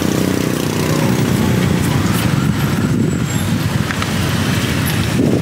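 Steady street traffic noise, with an engine running close by whose pitched hum fades out over the first second or so.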